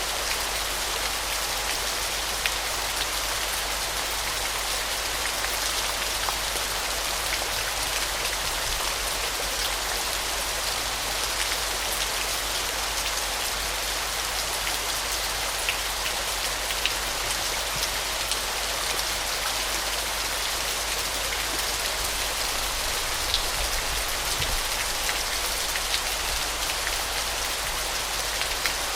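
Waterfall: a steady rush of falling water with many small splashes of drops scattered through it.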